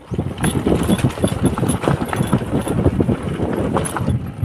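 Motorcycle engine running while riding over a bumpy dirt track, with many small irregular knocks and rattles over the engine sound.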